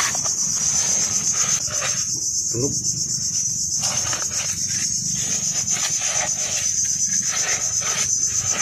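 Steady, high-pitched chorus of insects, with irregular short noises close by.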